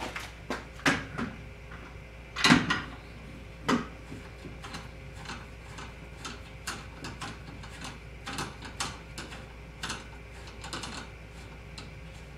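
Clicks, knocks and clatter of a Minn Kota trolling motor being handled and fitted onto the plastic transom bracket of a kayak motor mount, with a few louder thumps in the first four seconds and lighter taps after. A faint steady hum runs underneath.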